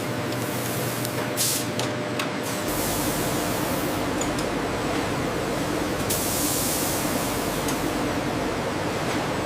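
Steady hissing noise of factory machinery, like a spray. The lower part of the sound changes abruptly a little under a third of the way in, and the hiss brightens for a moment past the middle.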